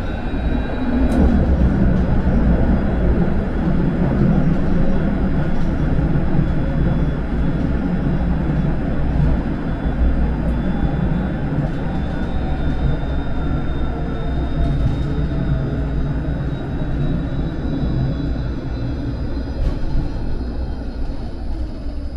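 Vario LF2+ low-floor tram running under way: rolling rumble with the whine of its electric traction motors, which rises in pitch as the tram accelerates at the start and falls in pitch later as it slows.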